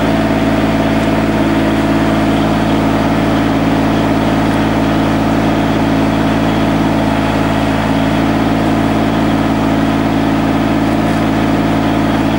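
FAI mini excavator's engine running steadily at idle, an even, unchanging drone.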